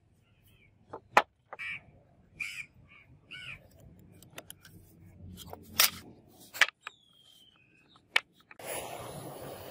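Sharp taps and knocks of wax blocks and a scriber handled on a wooden bench, with a bird calling three times in the background. About a second before the end, a gas torch starts up with a steady rushing hiss.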